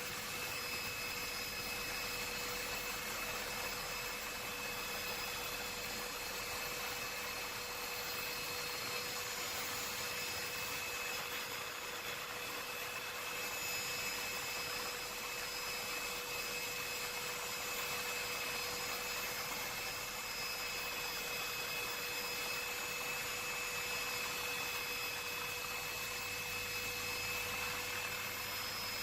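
Steady hiss with a faint, constant hum and high whine, unchanging throughout: an electronic noise floor with no distinct events.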